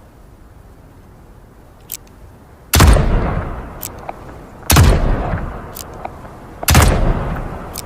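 .44 revolver firing three single shots about two seconds apart, each with a long, fading echo. A short click comes just under a second before each shot.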